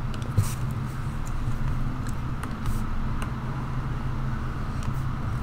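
A steady low hum of background noise with a few short, light clicks.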